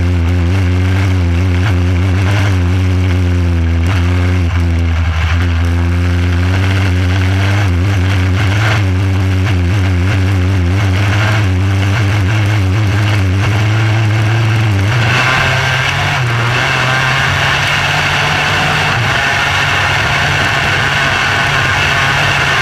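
Micro sprint car engine heard from the cockpit, running steadily at part throttle; about fifteen seconds in it is opened up and runs at a higher pitch with a harsher, brighter note.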